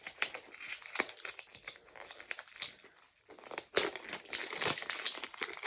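Paper wrapping of a toy capsule being torn and crinkled by hand: irregular crackling, easing off briefly about halfway, then a dense burst of crinkling.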